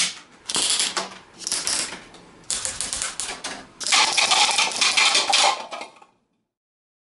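A TwistMek rubber band machine gun fired in about five rapid bursts, a fast clattering rattle as the bands are released one after another, with the light clatter of foam cups being hit and knocked down. The longest burst comes near the end and stops abruptly.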